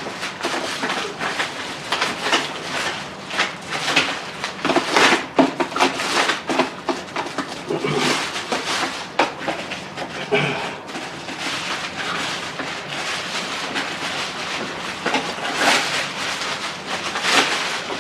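Plastic packaging wrap crinkling and rustling as it is handled and pulled off, in quick irregular crackles that keep going.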